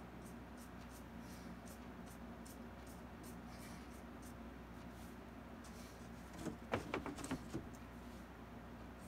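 Paintbrush strokes on canvas: faint, quick scratchy dabs about two or three a second over a steady low hum. About two-thirds of the way through comes a brief clatter of a few knocks, the loudest sound here.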